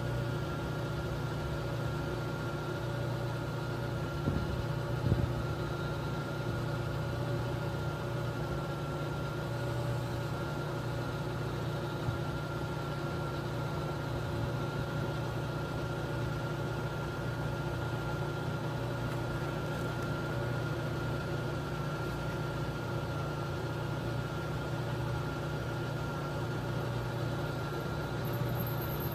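Level crossing warning signal ringing steadily with the barriers down, several fixed tones over a steady low hum. There are two brief knocks about four and five seconds in.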